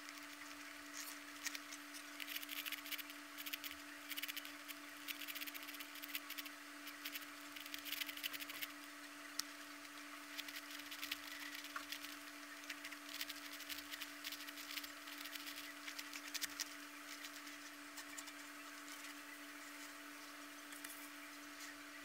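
Faint clicking and clattering of a plastic twisty puzzle's pieces being turned, in dense clusters through the first two-thirds, thinning out near the end, over a steady low hum.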